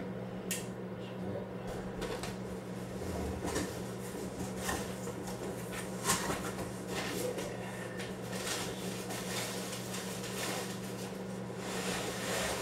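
Cardboard box and packaging being handled and unpacked: rustling with scattered clicks and knocks, the sharpest about halfway through, over a steady low hum.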